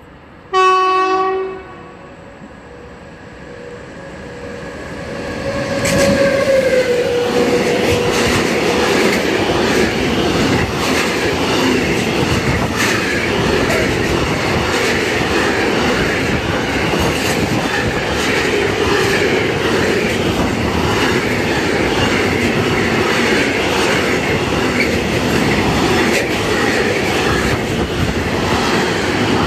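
Electric freight train passing close by: the locomotive's horn sounds once for about a second. The train then approaches, with a steady whine that drops in pitch as the locomotive passes about six seconds in. Container and tank-container wagons follow, rolling by loudly with a steady clickety-clack of wheels over the rail joints.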